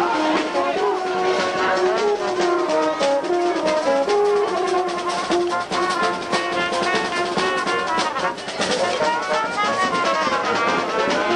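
Music played by brass instruments, with a melody of held notes.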